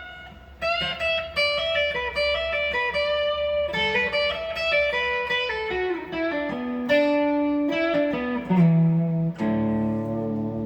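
Electric guitar played alone, picking a melody of single notes that steps down in pitch, then a chord struck about nine seconds in and left ringing.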